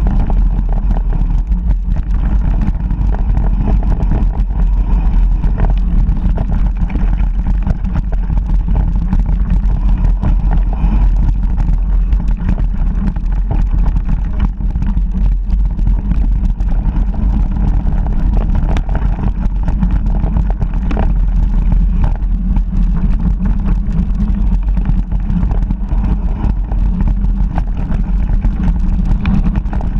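A loud, steady low rumble of wind buffeting an action camera's microphone during a downhill mountain-bike ride. It is peppered with frequent small knocks and rattles as the bike rolls over the bumpy grass track.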